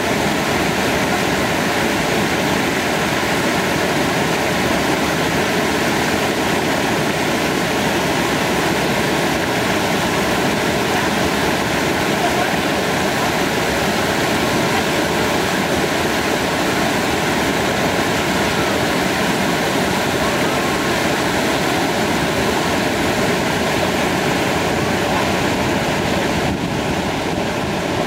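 Steady rush of falling water from a tiered waterfall, an even, unbroken hiss that eases slightly near the end.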